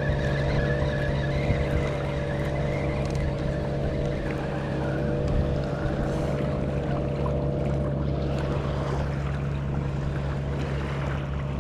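A motor engine running at a steady speed, a constant hum with a rushing noise over it.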